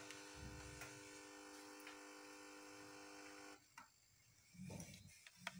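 A faint, steady electrical buzz that cuts off suddenly about three and a half seconds in, followed by a couple of soft knocks.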